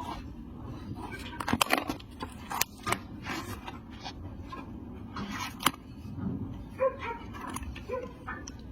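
Irregular sharp clicks and knocks of hoof-trimming tools working on a donkey's hoof, with two short pitched animal calls in the second half.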